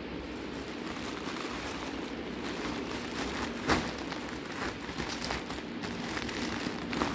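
Clear plastic packing bag crinkling and crackling as a folded saree is pushed into it and pressed flat, with one sharper crackle about halfway through, over a steady hiss.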